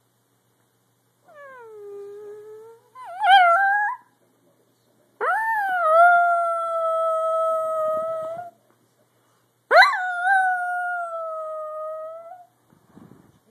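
Dachshund howling: after a short low call and a brief rising, wavering one, she gives two long howls, each sweeping quickly up and then held steady for about three seconds.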